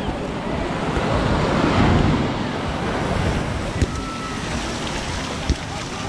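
Ocean surf breaking and washing up the sand, swelling to its loudest about two seconds in, with wind buffeting the microphone. Two brief knocks sound later on.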